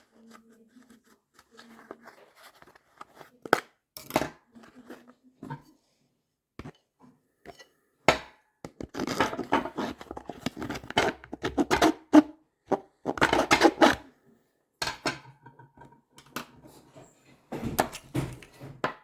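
Handling noise from a leather case and belt: rubbing, scraping and scattered knocks as the belt is worked through holes cut in the case, with denser stretches of rubbing in the middle and near the end.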